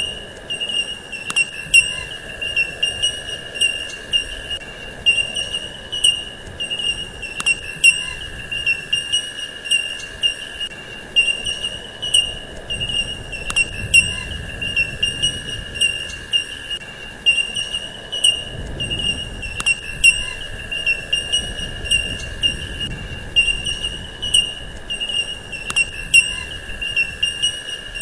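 Steady high-pitched chirring drone of insects, with a short click about every six seconds.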